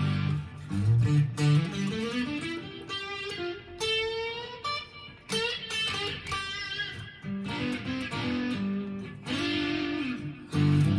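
Custom 24 electric guitar played through pickup position 1: a run of single notes climbing in pitch, then held notes and chords ringing out.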